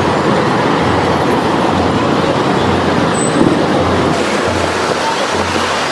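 Loud, steady outdoor background noise with a low throb recurring about once a second.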